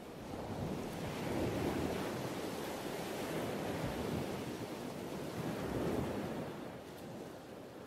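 Rushing sea noise of waves and wind, with no engine tone or music. It swells about a second and a half in and again around six seconds, then eases off near the end.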